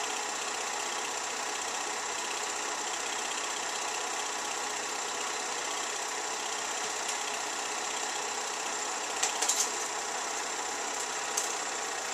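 Home-movie film projector running with a steady mechanical whir and clatter. A few sharp clicks come about nine seconds in and again about eleven seconds in.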